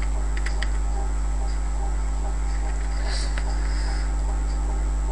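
Steady low electrical mains hum on the microphone, with a few faint keyboard key clicks.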